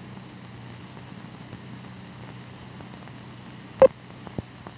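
Steady hiss and low hum of an old 1950s film soundtrack with no programme sound on it yet, broken by a sharp pop about four seconds in and two fainter clicks after it.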